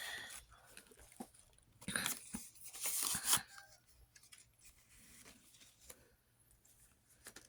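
Paper bills and envelopes rustling as they are handled, in a few short bursts in the first three and a half seconds, then only faint small clicks.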